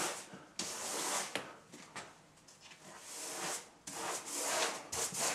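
Woodchip wallpaper being smoothed onto the wall: several separate dry rubbing, swishing strokes of the paper against the wall.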